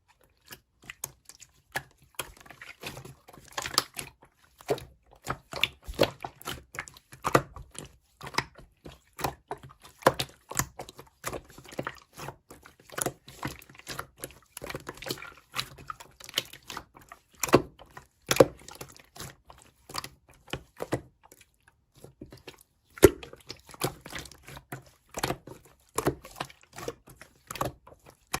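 Slime being squished and pressed by hand: irregular wet, sticky pops and clicks, several a second, some much louder than others.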